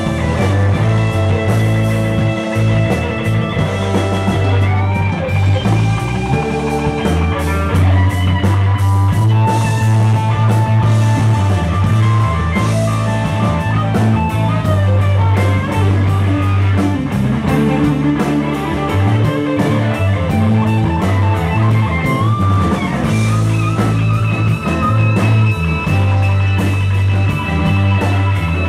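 Live rock band jamming with no vocals: two electric guitars, a Telecaster-style and a Les Paul-style, with keyboard and drum kit. Long held lead notes bend up and down in pitch over a steady beat.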